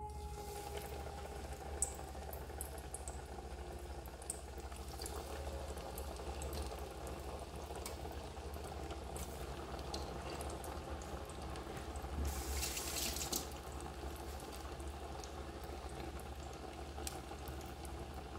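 Oat-coated potato croquettes deep-frying in a pot of hot oil: a steady sizzle with scattered pops and crackles. It starts as the pieces go into the oil and gets louder for about a second near twelve seconds in.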